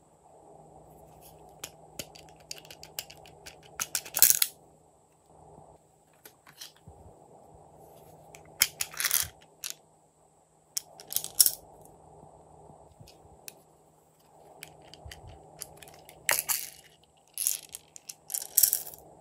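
Small plastic cases clicking open and plastic beads rattling and pouring, in about six short bursts of clicks and clatter with lighter handling clicks between them.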